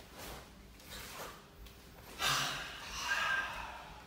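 Forceful exhalations of karate practitioners timed with kata techniques: a few faint breaths early on, then a loud, drawn-out exhale starting about two seconds in and lasting about a second.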